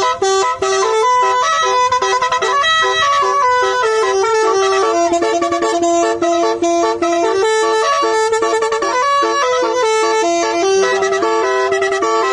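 Basuri-type multi-trumpet telolet air horn playing a fast melody, its loud clear notes stepping from pitch to pitch several times a second.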